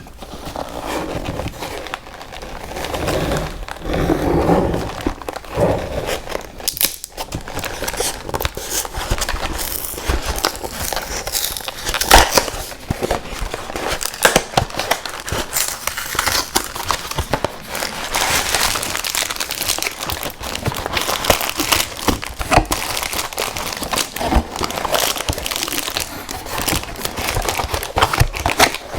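Close-miked eating of sweets: a dense, uneven stream of wet crackles and crunches from chewing, with no voice.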